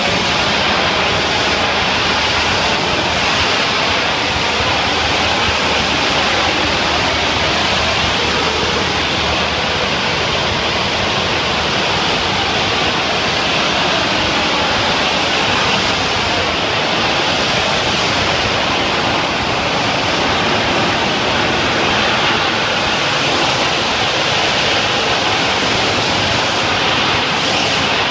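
Pressure washer wand spraying a high-pressure water jet against a concrete ceiling: a steady, loud hiss without a break.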